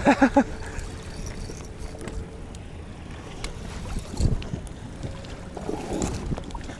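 Small boat drifting at sea: steady wind and water noise around the hull, with a short burst of three quick pitched sounds at the very start and a dull knock about four seconds in.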